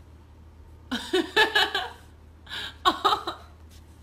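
A person laughing in three short bursts, the first about a second in and the others around the middle, over a faint low hum.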